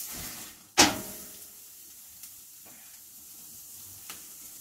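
Bone-in tomahawk steak sizzling on a hot gas grill grate, with a sudden loud burst of sizzle about a second in that dies away, then a steady quieter sizzle with a few faint ticks.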